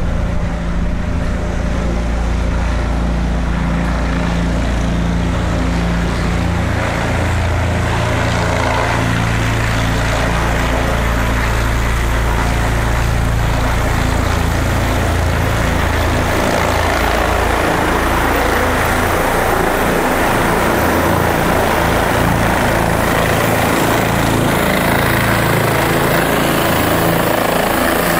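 A news helicopter's rotor and turbine engine running steadily as it flies in and comes down to hover low over the ground; the sound fills out and grows harsher in the higher range as it nears.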